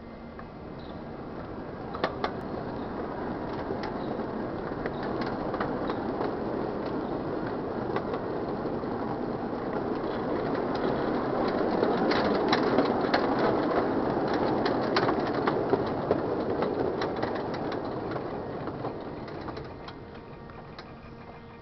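Miniature ride-on railway train rolling along a wooden trestle track: a steady rumble with sharp clicks from the wheels, growing louder to a peak about halfway through and fading near the end.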